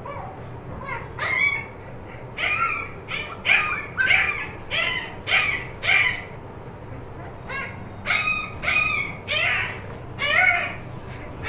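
Siberian husky puppy yipping and whining: more than a dozen short, high-pitched cries in quick succession, with a brief break a little past halfway.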